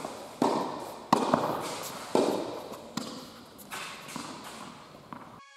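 Tennis rally: the racket hitting the ball and the ball bouncing on the indoor court, sharp pops every second or so, each ringing on in the echoing hall. Music starts just at the end.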